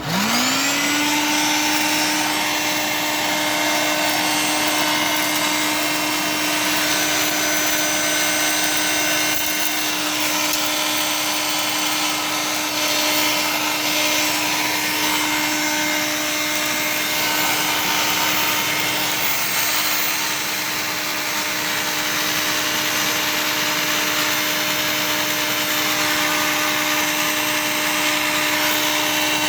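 Dirt Devil Ultra handheld vacuum switched on: the motor spins up within about a second to a steady whine over the rush of air, then runs on steadily, the airflow noise shifting a little now and then.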